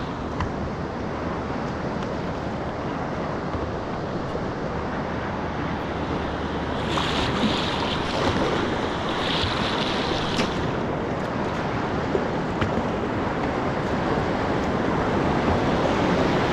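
River current rushing around a kayak hull, with wind buffeting the microphone. It swells slightly toward the end as the kayak nears the whitewater of a rapid.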